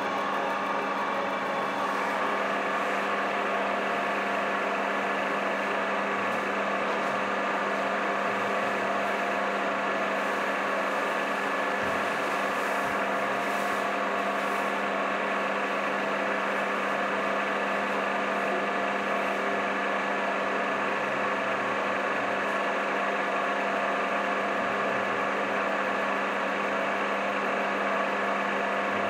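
Vertical milling machine running steadily as its face cutter takes a light finishing pass across an aluminium diesel cylinder head, with the spindle at 350 rpm. It is an even hum with several held tones, and the higher tones shift slightly about two seconds in.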